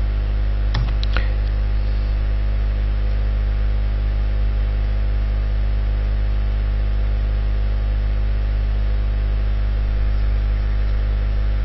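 Steady electrical mains hum with a stack of even buzzing tones and constant level. Two faint keyboard clicks come about a second in.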